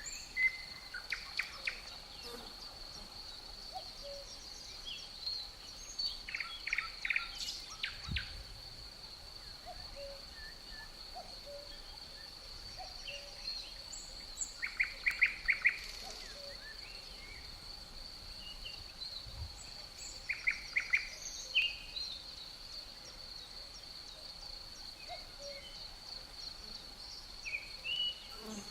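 Birdsong: a few birds singing short phrases of rapidly repeated notes every several seconds, over a steady high-pitched insect trill that runs without a break.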